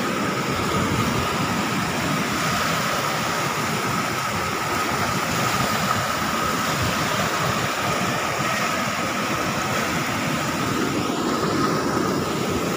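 Muddy floodwater rushing steadily over a concrete weir and churning in the spillway below.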